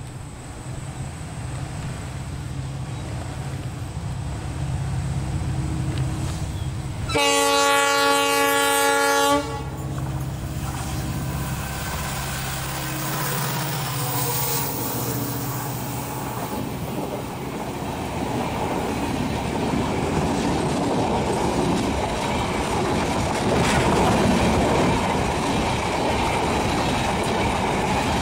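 Diesel locomotive approaching with its engine running and growing louder, sounding its horn once for about two seconds, a quarter of the way in. Its passenger coaches then roll past close by, the wheel and rail noise building towards the end.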